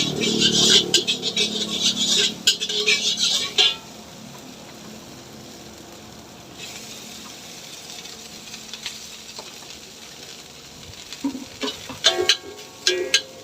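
Egg fried rice being stir-fried in a wok: a metal spatula clatters and scrapes rapidly against the pan over frying sizzle. After about four seconds the clatter stops and a quieter steady sizzle carries on.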